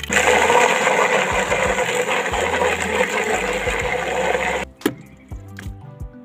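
Food processor running loudly, kneading stiff flour-and-water seitan dough, with steady motor and churning noise that stops abruptly about three-quarters of the way through. Background music plays underneath.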